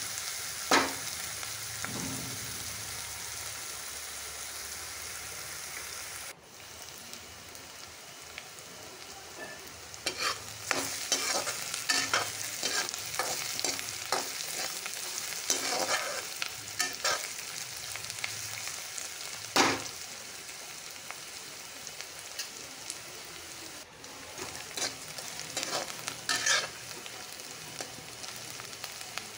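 Chopped onions sizzling in hot oil in a metal kadhai, frying toward light golden brown, while a steel ladle scrapes and knocks against the pan as they are stirred. The scraping strokes come thickest through the middle, with one louder knock about two-thirds of the way through.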